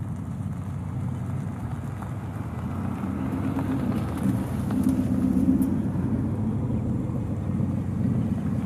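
Engines of cars and pickup trucks running as they roll slowly past, a steady low hum that grows louder from about three seconds in.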